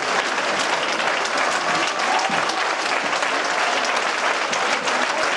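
A theatre audience applauding steadily, dense clapping throughout.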